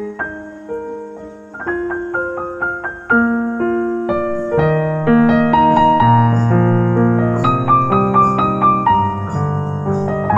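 Background piano music: a gentle melody over chords, growing fuller about three seconds in.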